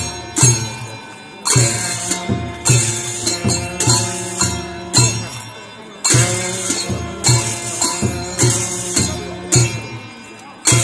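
Traditional dance music: drum strokes with clashing cymbals about every half second under held melodic tones, swelling with new phrases about a second and a half in and again about six seconds in.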